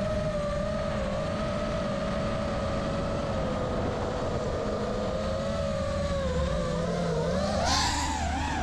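FPV quadcopter's brushless motors and propellers whining at a steady pitch, heard from the camera on board the drone. Near the end the pitch wavers up and down as the throttle changes, with a brief hiss.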